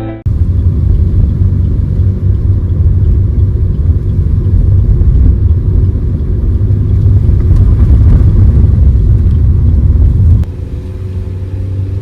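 Strong wind buffeting the microphone, a loud, even low rumble. It drops off suddenly about ten seconds in to a quieter rumble.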